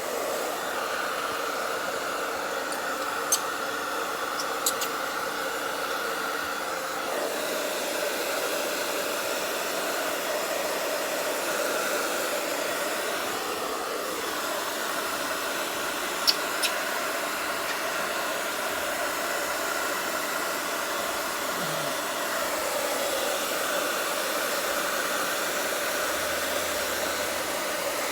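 Hair dryer blowing steadily, its tone shifting slightly about a quarter of the way in. A few short sharp clicks sound over it.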